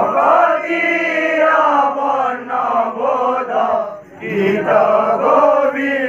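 Voices chanting an Odia kirtan verse in long, held phrases, with a short break about four seconds in and no drum beneath them.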